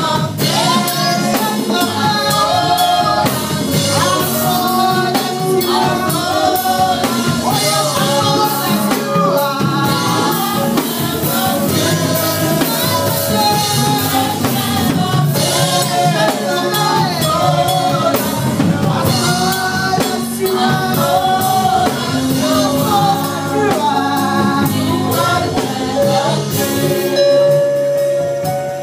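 Live gospel praise-and-worship singing: a woman's amplified lead voice over a small group of women singing backing, with band accompaniment and drums.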